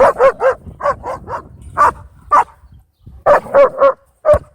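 A dog barking repeatedly: about a dozen short, loud barks in quick clusters of two or three, with brief pauses between clusters.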